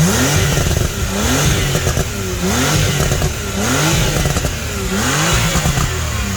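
Porsche 911 (991.2) 3.0-litre twin-turbo flat-six on its standard exhaust, revved in repeated blips about once a second, each rev rising and falling back.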